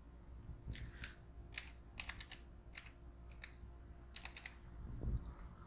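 Computer keyboard typing: faint, scattered keystrokes, singly and in short quick runs, with a soft low thump near the end.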